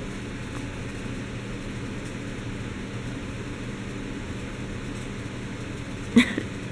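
Steady background hum and hiss of the room, with a brief sharp sound about six seconds in.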